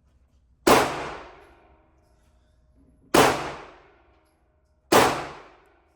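Three single pistol shots, about two and a half then about two seconds apart, each echoing for about a second after the crack.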